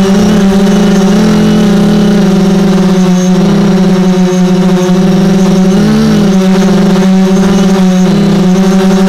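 Multicopter drone's electric motors and propellers, heard from its on-board camera as a loud, steady hum with a wavering beat as the rotor speeds shift against each other. About six seconds in the pitch dips and recovers briefly.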